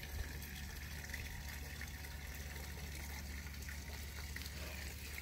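Small creek running steadily: an even rush of flowing water.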